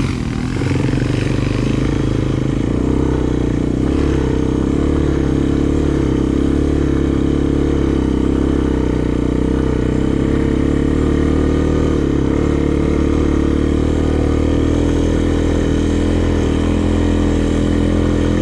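Honda sport ATV's single-cylinder four-stroke engine running steadily at low, even revs.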